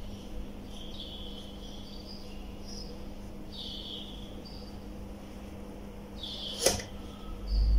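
Marker squeaking on a whiteboard in short, irregular strokes, with a sharp tap about six and a half seconds in. A steady low hum lies underneath.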